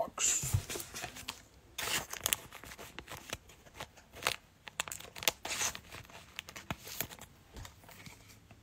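Plastic wrapper of a trading-card cello pack being torn open and crinkled, with irregular crackles and sharp rustles that thin out near the end.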